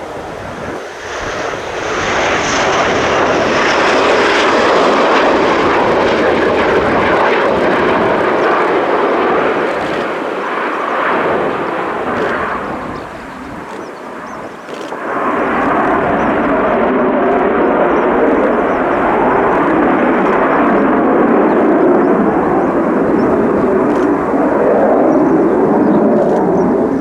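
Military jet engines passing close, with a high whine over the jet noise in the first few seconds. The noise dips briefly about halfway, then swells again as another pass comes through.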